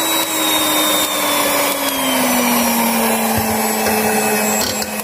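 Electric hand mixer running at high speed, its twin beaters whisking eggs to a froth in a stainless steel bowl. The motor's steady hum sinks slowly in pitch.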